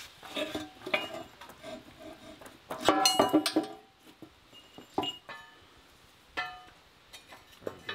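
Steel backhoe parts clanking and ringing as the bucket and its pins come off the dipper arm and a quick-attach coupler is set in place. The loudest part is a cluster of ringing clanks about three seconds in. Single clinks follow later.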